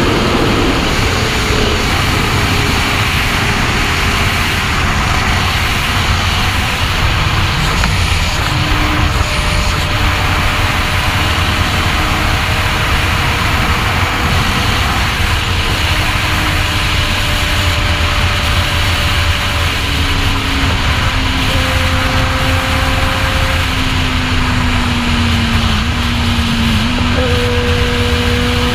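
Sport motorcycle cruising at highway speed: steady wind rush on the microphone over the engine, whose note holds and shifts only slowly.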